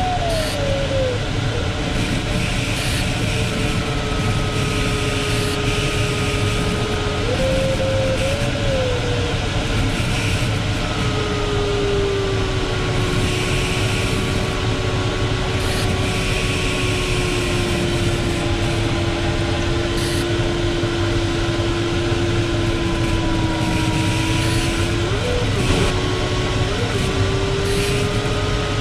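Steady rush of airflow in a Ventus 2cxT sailplane's cockpit, over which a variometer's continuous electronic tone drifts slowly up and down in pitch, with a couple of quick upward blips near the end.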